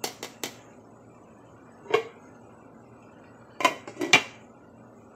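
A pot of crawfish at a rolling boil bubbling steadily, with sharp clinks and knocks of kitchenware against the aluminium pot: three quick ones at the start, one about two seconds in, and a louder cluster near the four-second mark.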